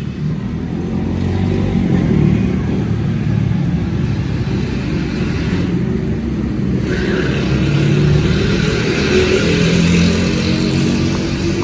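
An engine running, its pitch drifting up and down as it revs.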